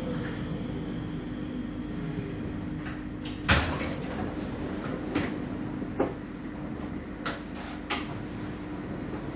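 Tram standing still with a steady electrical hum, its motor whine dying away at the start as it comes to rest. A loud clunk comes about three and a half seconds in, followed by several lighter knocks and clicks.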